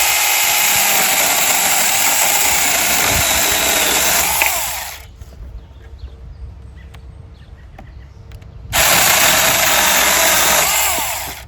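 Saker 20 V battery-powered mini chainsaw running in two bursts, a long one of about five seconds and a shorter one of about two and a half seconds, each winding down as the trigger is released, the chain cutting through wood.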